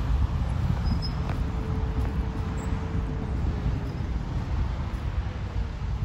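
Komatsu crawler bulldozer working at a distance: a steady low rumble, with a faint whine that comes and goes.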